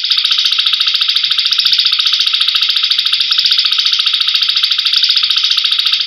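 A continuous buzzy animal trill in a songbird-training (masteran) call recording, pulsing quickly at about a dozen beats a second with no break.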